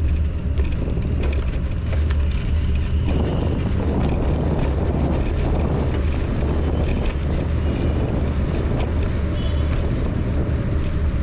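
Bicycle riding noise picked up by a handlebar-mounted camera: a steady low wind rumble on the microphone, tyre noise that turns rougher from about three seconds in until about nine seconds, and scattered light clicks and rattles from the bike.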